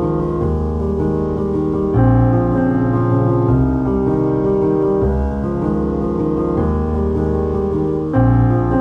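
Background piano music: sustained chords that change every second or two.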